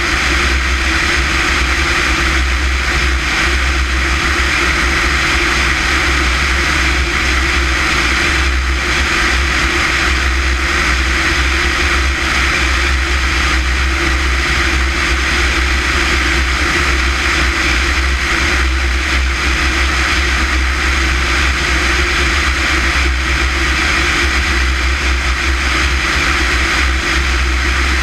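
Small propeller aircraft in cruise flight: steady drone of the engine and propeller mixed with wind rush, holding constant with no change in power.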